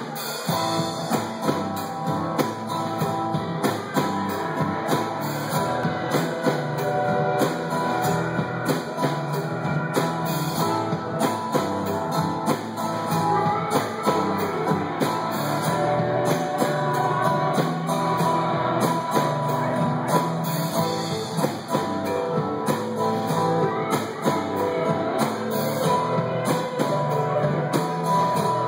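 Live rock band playing: strummed acoustic guitar over bass and a drum kit keeping a steady beat.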